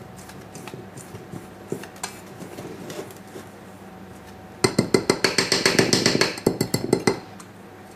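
Wire whisk beating dry flour and cocoa in a stainless-steel mixing bowl, its wires clinking quickly against the metal sides for about two and a half seconds from roughly halfway through.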